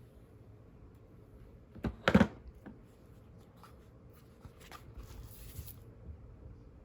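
Makeup things being handled: a sharp double knock about two seconds in, then a few soft clicks and a brief rustle.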